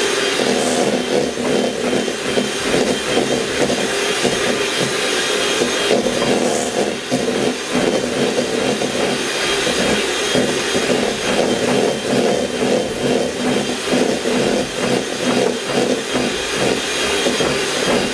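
Electric hand mixer running steadily, its beaters whipping softened butter in a stainless steel bowl. The loudness wavers as the beaters are moved around the bowl.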